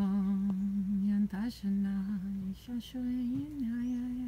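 A woman humming a slow, wordless tune in long held notes with short breaks between them; the last note is higher and dips and rises in pitch.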